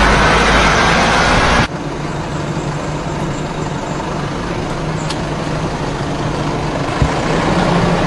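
A vehicle engine running steadily under rough outdoor noise. The noise drops abruptly to a lower, even hum about a second and a half in.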